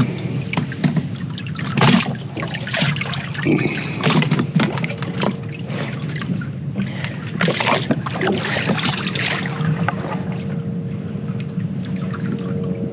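A hooked freshwater drum (sheephead) splashing at the surface beside a boat, with water lapping and trickling, and irregular short splashes over a steady low hum.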